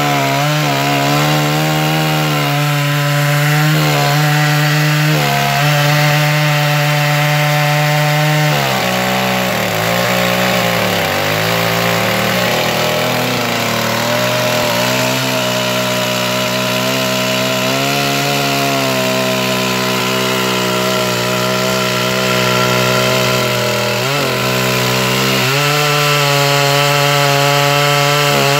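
Large chainsaw in an Alaskan-style chainsaw mill, running at full throttle while ripping a log lengthwise. The engine note sags under the load for a few seconds about a third of the way in, then climbs back, with a few other brief dips.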